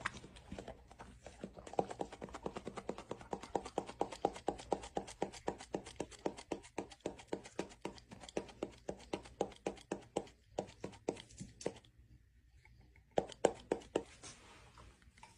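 A rapid, steady run of sharp clicks or taps, about five a second, that breaks off into a few scattered taps, then a short final burst near the end.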